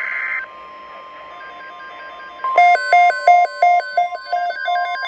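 Electronic alert beeping from an emergency alert receiver: a rapid warble of alternating high and low tones, about three a second, starting about two and a half seconds in. Before it, a fainter steady tone with soft beeps.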